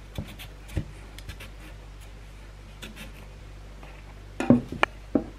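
Kitchen knife working on a raw potato over a wooden cutting board: a few light clicks and scrapes, then a quick cluster of louder knocks on the board near the end, over a faint steady low hum.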